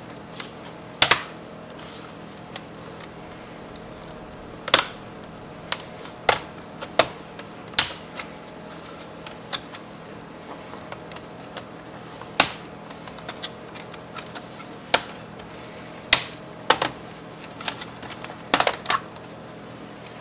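Computer keyboard keys and mouse buttons clicking: about twenty sharp, separate clicks at irregular intervals, roughly one a second, over a low room hum.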